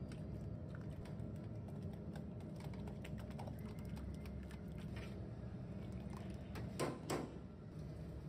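Steel ladle working tomato gravy through a metal mesh sieve into a steel tray: a run of small clicks and scrapes, with two louder knocks near the end. A steady low hum runs underneath.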